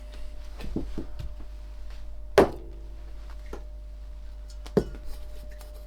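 Objects being handled and set down on a workbench: two sharp knocks about two and a half seconds apart, with a few lighter taps. Under them runs a faint steady 600 Hz test tone.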